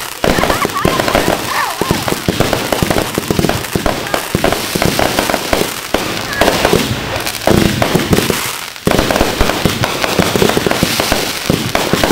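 Consumer firework going off in a rapid, dense string of crackling pops and bangs, with a brief lull about eight and a half seconds in before it resumes.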